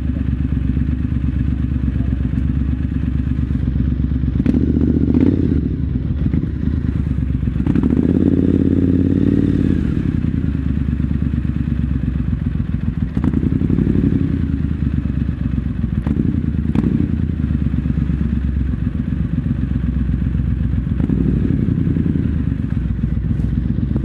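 Triumph Scrambler 900's parallel-twin engine idling and running at low speed, with several short rises in throttle and a longer one about eight seconds in, inside an underground car park.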